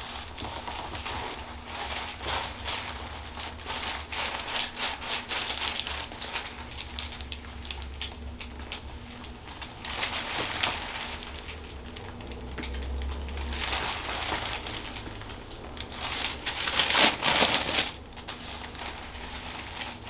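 Paper headrest cover crinkling and rustling under a patient's head as a chiropractor's hands massage and shift the neck, in louder spells about halfway through and near the end.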